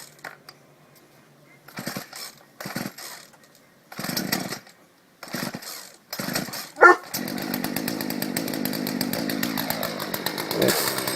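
Small two-stroke gas chainsaw being pull-started from cold with the choke out: about five quick tugs of the recoil starter cord, then the engine catches about seven seconds in and keeps running steadily.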